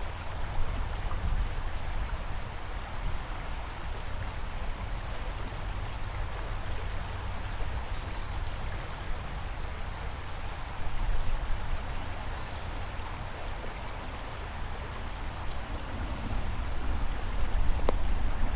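Rain-swollen river rushing steadily past the bank: an even rushing hiss over a low rumble. A sharp click near the end.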